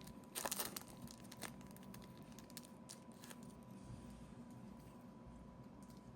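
Plastic wrapping being torn and crinkled as a trading-card blaster box is opened: a loud burst of crinkling about half a second in, then scattered faint crackles that die away after about three and a half seconds.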